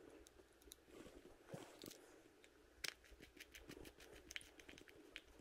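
Faint, irregular small clicks and taps of a baitcasting reel's small parts being handled, as a retaining clip is fitted back on during reassembly; the clicks come more often in the second half.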